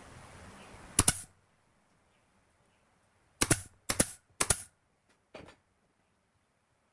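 Pneumatic nail gun firing nails into pine trim strips as sharp snaps. One shot comes about a second in, then three in quick succession about half a second apart, then a fainter fifth.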